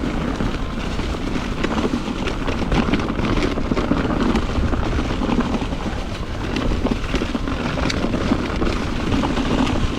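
Mountain bike ridden fast down a dirt singletrack: tyres rolling over dirt and rocks with steady wind buffeting on the camera microphone and frequent small rattles and knocks from the bike.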